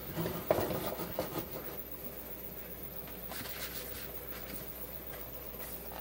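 A short run of knocks and clatter from handling, the loudest a sharp knock about half a second in. Faint crackles follow around three to four seconds in.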